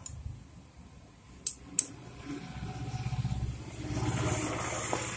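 Two sharp clicks of a screwdriver on the metal cylinder head, then a motor vehicle's engine running nearby, a low even pulsing that grows louder over a couple of seconds.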